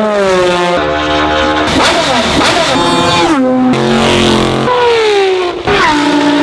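A quick-cut montage of racing car engines at speed: a succession of different cars, each heard for only one to two seconds before an abrupt cut to the next, their engine notes mostly dropping in pitch as they pass or change gear.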